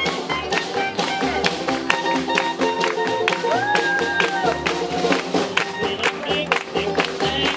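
Live swing band playing an up-tempo number with a steady beat, while the crowd around the dancers claps along.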